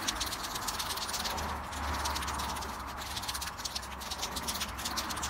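Aerosol spray paint can shaken hard, its mixing ball rattling rapidly inside, ahead of spraying.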